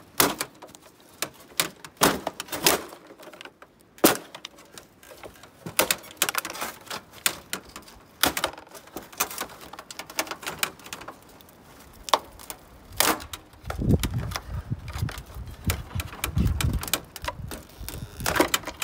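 Irregular clicks, taps and knocks of the sheet-metal and plastic front panel of a gas dryer being handled and pried apart, with a low rumble for the last few seconds.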